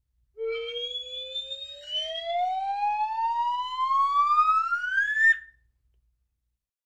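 A whistle-like sound effect: one tone rising steadily in pitch for about five seconds, then cutting off suddenly.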